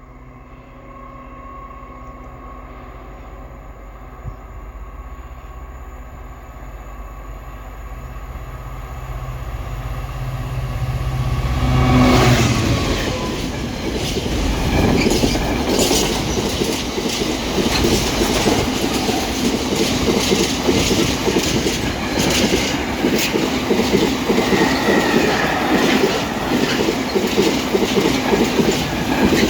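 GB Railfreight Class 66 diesel locomotive 66701, with its two-stroke V12 engine, approaching with its engine note growing steadily louder and passing about twelve seconds in. The container wagons then roll by with a continuous clickety-clack of wheels over rail joints.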